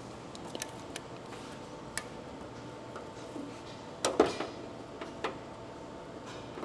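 Light clicks and rustles of a steel tape measure and a marker pen being handled against a masking-taped panel, the loudest a short clattering cluster about four seconds in, over a steady faint hum.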